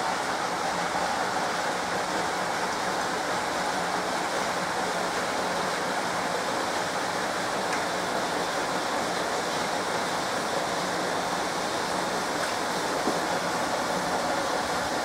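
SMEG 11 kg washing machine running, a steady, even rushing noise like flowing water that holds the same level throughout.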